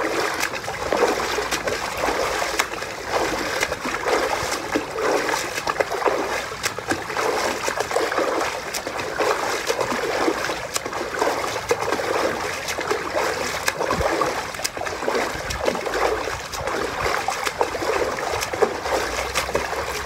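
Water splashing continuously as legs kick hard in a shallow inflatable pool: a fast, uneven run of splashes that starts suddenly.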